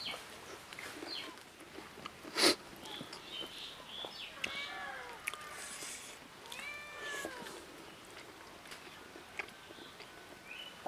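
Two meow-like animal calls, each rising and then falling in pitch, about two seconds apart, with a single sharp knock a couple of seconds before them.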